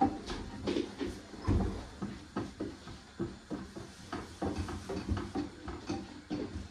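Kitchen handling sounds: irregular clicks and knocks of utensils and cookware being moved about, with a heavier thump about a second and a half in.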